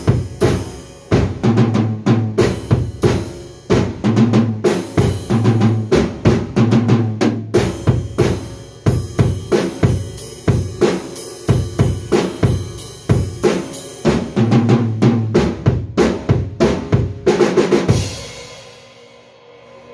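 Acoustic drum kit played in a fast rock pattern, with bass drum, snare and toms hit in quick succession. About eighteen seconds in, the playing ends on a final cymbal crash that rings and fades.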